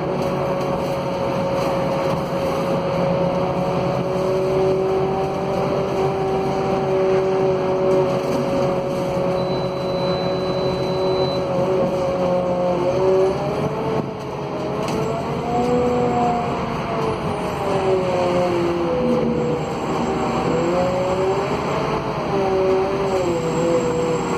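Scania K280 city bus's five-cylinder DC09 diesel and ZF Ecolife automatic gearbox, heard from inside the passenger cabin. A steady drivetrain whine over road noise holds its pitch for about half the time, then rises and falls as the bus speeds up and slows down.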